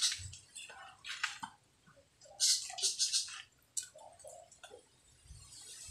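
Short, irregular scrapes and taps of hand work on a wooden board, with quiet gaps between them.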